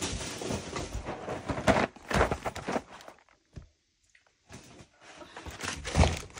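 Chocolate bars and boxes being handled and set down inside a cardboard box: rustling of packaging with a few dull knocks, a short pause midway, then more rustling and a knock near the end.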